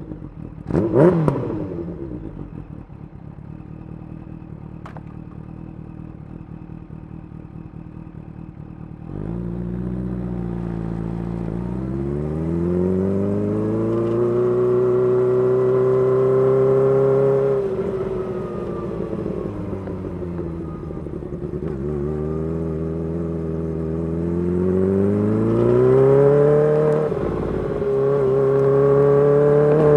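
Kawasaki Ninja H2's supercharged inline-four through a full titanium exhaust: a quick throttle blip about a second in, then idling. After about nine seconds it pulls away and accelerates through the gears, its pitch climbing and dropping at each of two upshifts.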